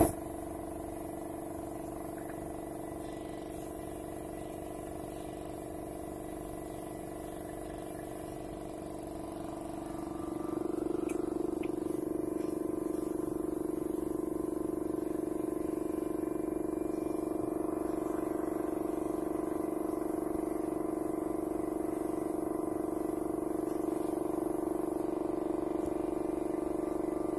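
A steady motor hum with an unchanging pitch, which gets louder about ten seconds in and then holds.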